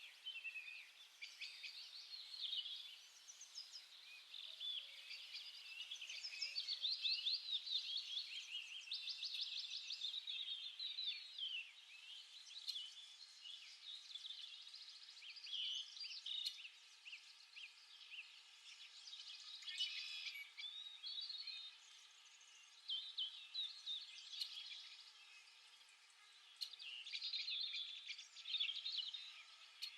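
Small birds chirping, with many short overlapping calls and trills that go on throughout and are busiest about a quarter of the way in.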